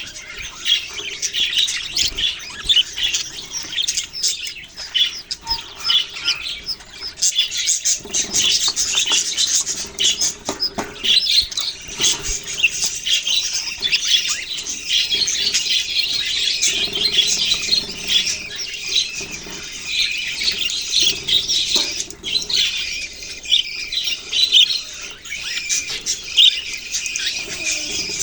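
A flock of budgerigars chirping and chattering, many birds at once in a continuous, busy stream of short high calls.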